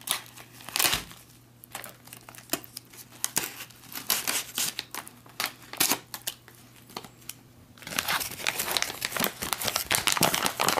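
A foil-lined ration food pouch being cut open with a knife and handled: scattered sharp crackles and snaps of the stiff packaging, turning into dense, continuous crinkling about eight seconds in as the pouch is pulled open.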